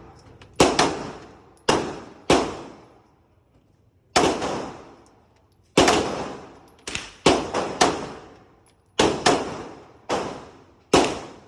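9mm pistol fired at a range: about fourteen sharp shots at irregular spacing, some in quick pairs, each followed by a short fading ring.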